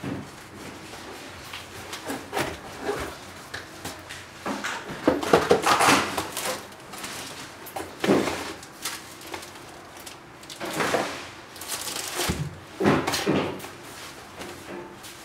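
A cardboard shoe box being opened and unpacked by hand: the lid slid off and set down, and the plastic wrapping inside rustling, in irregular scrapes and knocks. The loudest handling is about five to six seconds in.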